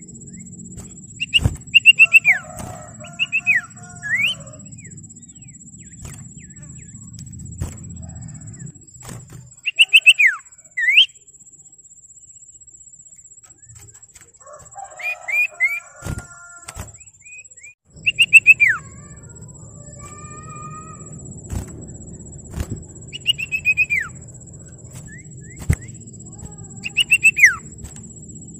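Common iora (sirtu/cipoh) calling: short bursts of quick chirps, each ending in a clear whistle that slides down in pitch, repeated every few seconds.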